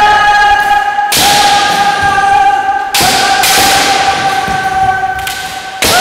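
Kendo players' long, high kiai shouts, each held steady for a second or more, cut by sharp cracks of bamboo shinai strikes and stamping feet on the wooden floor about a second in, about three seconds in and near the end.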